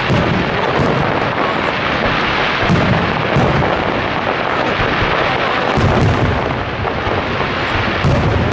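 Aerial fireworks display in a dense barrage: a continuous crackle and rumble of many shells bursting at once, with several heavier booms.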